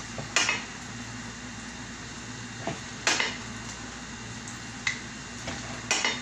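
A metal utensil clanking against a cooking pot: sharp clanks about half a second in, around three seconds in and just before the end, with a few fainter taps between, over a steady low hum.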